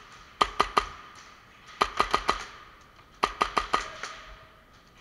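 Airsoft guns firing semi-automatic, in three quick volleys of three or four sharp shots each, about a second and a half apart.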